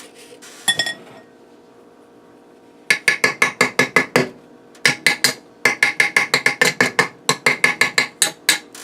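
A metal bundt cake pan tapped rapidly over and over to loosen a cake stuck inside, sharp ringing taps about five a second. The taps start about three seconds in and pause briefly once. A single clink comes just before.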